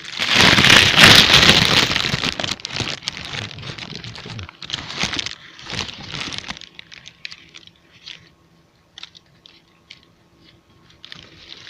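Gusty wind shaking the fabric of an ice-fishing tent, a loud crackling, crinkling rush that peaks about a second in and fades out after about six seconds, leaving only scattered faint clicks.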